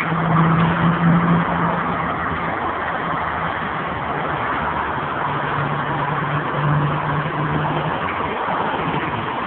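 A motor vehicle running over steady noise, with a low hum that holds one pitch, strongest in the first couple of seconds and again from about five to eight seconds in.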